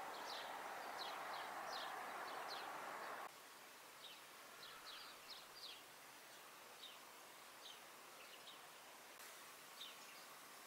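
Small birds chirping at dawn, short high chirps repeating every second or so. Under them is a steady outdoor background hiss that is the loudest sound for the first three seconds and then stops abruptly.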